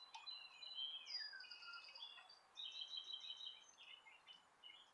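Faint songbird song: high whistled notes, a falling glide about a second in, then quick trills of repeated short notes.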